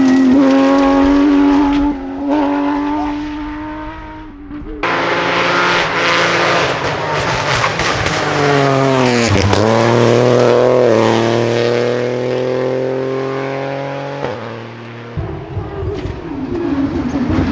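Porsche 992 rally car's flat-six engine running hard as it passes at speed, in several short runs that cut off abruptly. About halfway through, the revs dip sharply and climb again.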